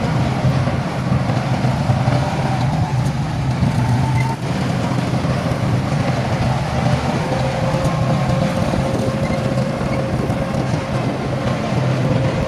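Heavy diesel engine of construction machinery running steadily under load, with a deep, even rumble and a faint whine over it.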